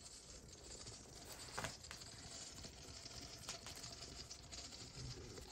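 Motor oil pouring from a 4-litre plastic bottle into a plastic measuring jug: a faint trickle, with two short clicks about two seconds apart, the louder one about one and a half seconds in.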